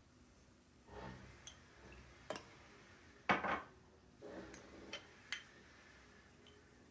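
Kitchen handling sounds: dishes and utensils clink and click a few times, with one louder clatter about three seconds in.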